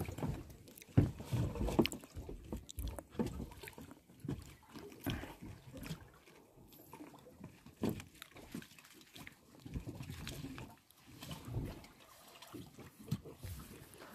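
Irregular low knocks and bumps from an inflatable dinghy and the gear in it being handled against a small motorboat on the water.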